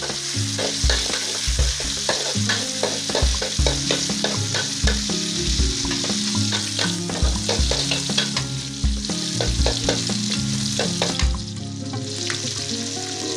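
Sliced garlic, shallots and chillies sizzling in hot oil in a pan, stirred with a spatula that clicks and scrapes against the pan again and again. The sizzle eases slightly near the end.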